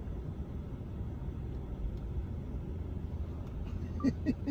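Steady low rumble of a car, with a few short, faint voice sounds about four seconds in.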